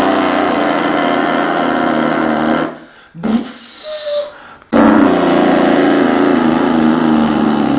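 A person imitating a Freightliner truck engine with the mouth: two long buzzing, hissing drones of about three seconds each, broken near the middle by a short pause with a brief gliding squeak.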